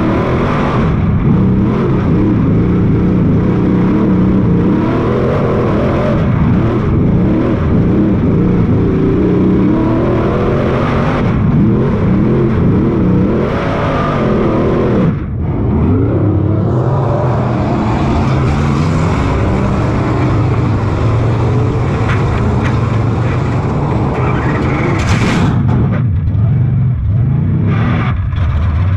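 Race car's engine heard from inside the cockpit at racing speed on a dirt oval, its revs rising and falling over and over as it accelerates and backs off, with a brief lift about halfway through.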